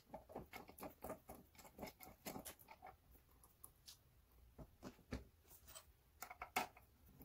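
Faint, irregular small clicks and taps of a bolt being turned by hand into the metal side bracket of an Abko Hacker gaming chair's backrest, with light handling noise, a few clicks a second and one louder click near the end.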